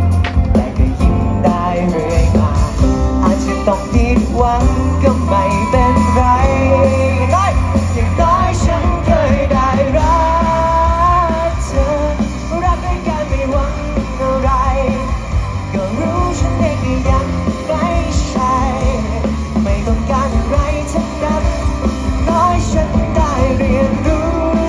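A live rock band playing a song: a singer over electric guitar, bass guitar and drums.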